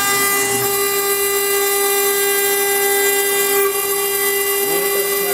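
CNC-1218 router's spindle milling a wet stone slab with a small engraving bit under a coolant jet: a steady whine with many overtones.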